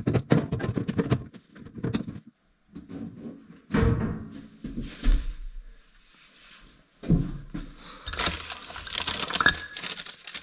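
Clicks, knocks and scraping of a combi boiler's front casing being handled and fitted back on.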